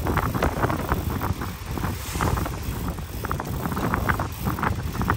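Boat's engine running under way with wind buffeting the microphone, over a string of short, irregular clicks.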